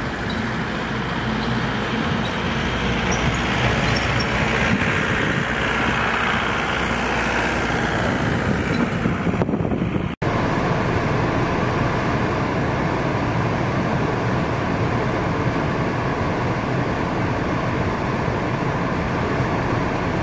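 Motor vehicle engine noise: a vehicle grows louder and then fades in the first half. After a break about halfway, an engine runs steadily with a faint whine.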